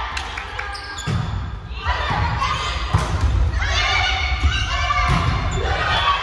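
Volleyball players shouting and calling to each other during a rally, echoing in a large gym hall, with sharp thumps of the ball being struck; the loudest smack comes about three seconds in.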